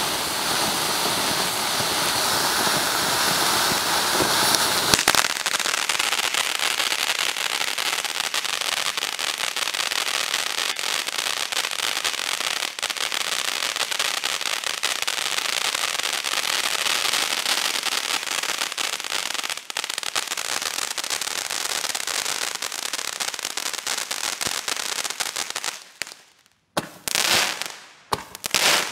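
Crackling fountain firework burning. It starts as a steady hiss of spraying sparks, then about five seconds in turns to dense, rapid crackling. Near the end it dies down, with a couple of last short spurts.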